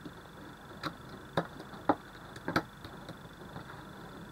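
A handful of short, sharp knocks and taps as hands rub pepper into a raw beef steak on a ceramic plate and turn it over, the plate knocking on the table.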